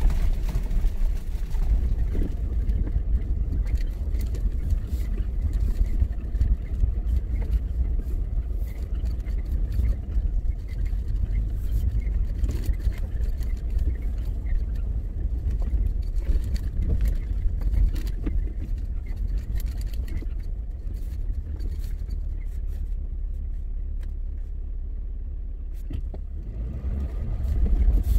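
Low rumble of a vehicle driving up a rough unpaved mountain road, heard from the vehicle, with scattered small knocks and crackles from the dirt and gravel surface. It eases for a few seconds near the end, then grows louder again.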